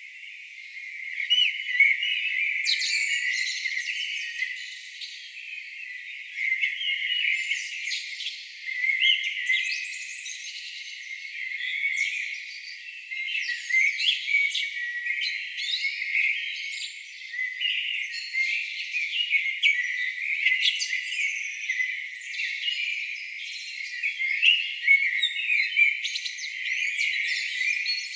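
Songbirds singing together in a dense chorus of overlapping chirps, trills and quick whistles. It is all high-pitched, with no low sound at all.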